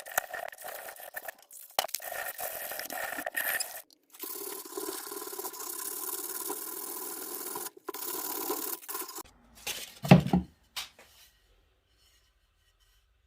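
Steady scraping and rubbing on an axe under restoration, in several short takes that cut off abruptly. A loud knock comes about ten seconds in, followed by near silence.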